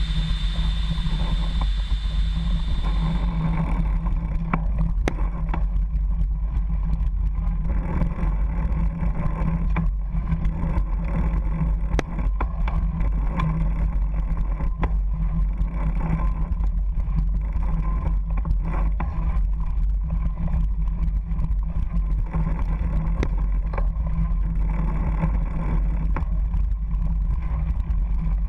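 Wind buffeting the mountain bike's camera microphone as a steady rumble, with the rattles and knocks of the bike bouncing over a dirt trail.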